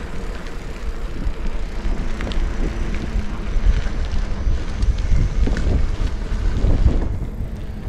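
Wind buffeting the microphone of a moving bicycle, a loud low rumble with a few light clicks and rattles from the bike.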